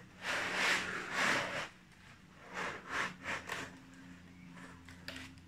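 Cardboard laptop box being opened by hand. About a second and a half of rubbing and scraping comes first, then three or four shorter scrapes as the box and its white packing foam are handled.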